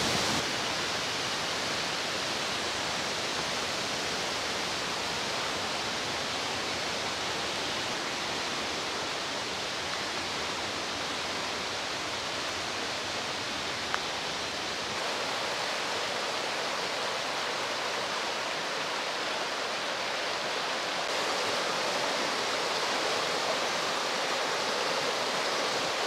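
Steady rushing of water in a mountain stream, an even hiss-like noise whose character shifts slightly about fifteen and twenty-one seconds in, with one small tick about fourteen seconds in.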